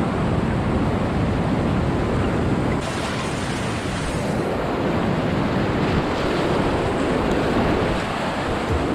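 Whitewater rapids rushing and splashing steadily around a kayak, heard close to the water as waves break over the bow.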